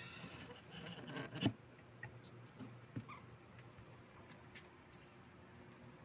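Night insects, crickets, chirring steadily at a high pitch, with a few soft knocks, the loudest about a second and a half in.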